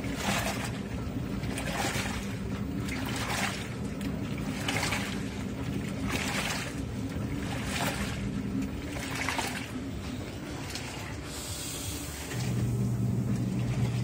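Top-loading washing machine agitating a load in water: a swish of sloshing water roughly once a second over a steady motor hum. About twelve seconds in, a louder steady motor hum takes over, from a twin-tub washer churning soapy laundry.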